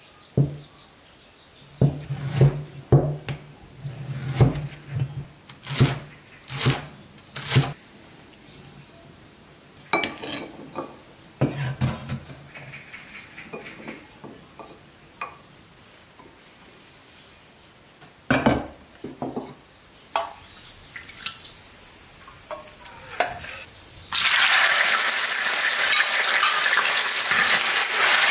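A cleaver chops on a round wooden chopping block: a run of solid knocks, then scattered knocks and clinks. Near the end, diced tofu starts frying in hot oil in a wok with a loud, steady sizzle as a spatula stirs it.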